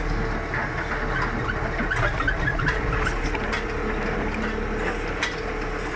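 JCB 3CX backhoe loader's diesel engine running steadily, heard from inside the cab, with scattered clicks and knocks through it.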